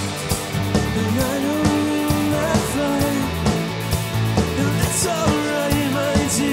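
Rock band playing live: electric guitar strummed over drums and a steady low bass line.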